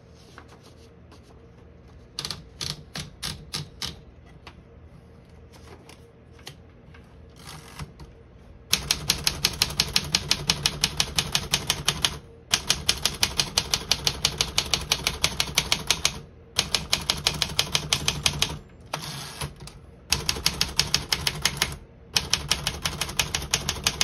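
1967 Smith-Corona Corsair Deluxe manual portable typewriter. First a scatter of clicks as a sheet of paper is wound into the platen. From about nine seconds in comes steady typing, keys striking about four times a second in runs broken by short pauses, every key typing cleanly with none sticking.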